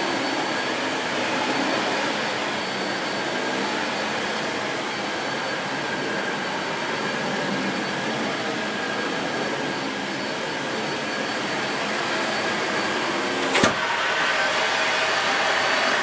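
Dyson Light Ball bagless upright vacuum cleaner running over carpet with its brush bar engaged. It makes a steady motor whine with a thin high tone, and a single sharp knock comes near the end.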